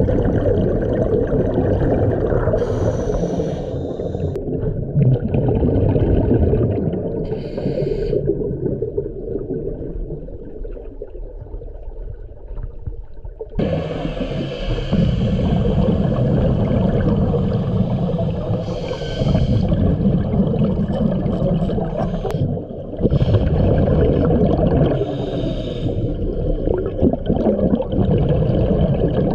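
Muffled underwater sound of a scuba diver breathing through a regulator, with a rush of exhaled bubbles every few seconds.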